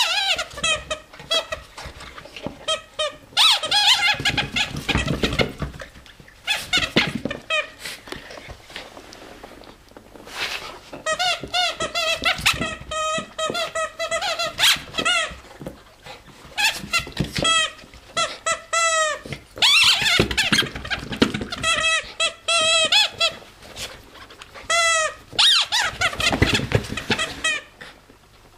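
A rubber bone squeaky toy squeaking over and over in irregular bursts as a Havanese bites and chews it. There is duller rustling in between the squeaks.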